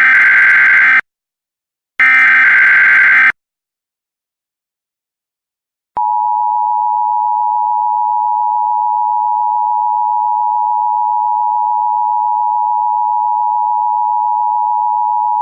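Emergency Alert System tones: the last two buzzy SAME header data bursts, about a second each with a second's gap between them, then silence, then about six seconds in the steady two-tone EAS attention signal starts and holds. The tones herald an incoming emergency alert message.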